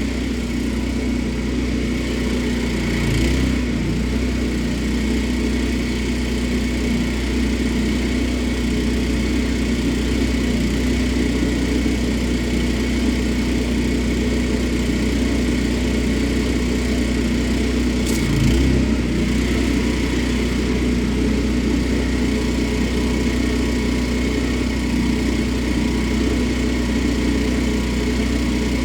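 Pressure washer's small petrol engine running steadily at a constant speed, with a steady hiss over the top. There are two brief knocks, about three seconds in and again about eighteen seconds in.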